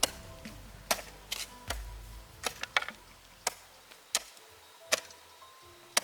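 Irregular sharp knocks, roughly one a second, several followed by a brief ringing tone: hand tools striking bamboo or wood during building work.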